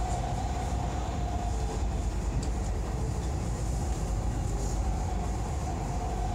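Dubai Metro train running along elevated track, heard from inside the car: a steady low rumble with a faint steady whine above it.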